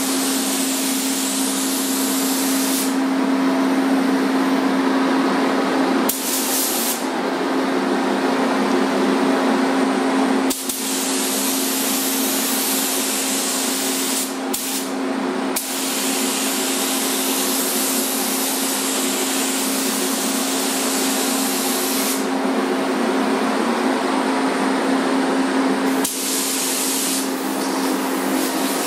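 Gravity-feed spray gun hissing as it sprays paint, the hiss stopping and restarting several times between passes, over a steady low hum.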